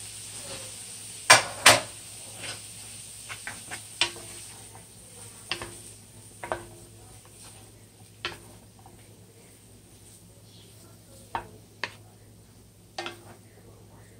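Two wooden spatulas knocking and scraping against a nonstick pan as food is stir-fried, with a faint frying sizzle that dies away. Two sharp knocks come about a second and a half in, then scattered lighter taps.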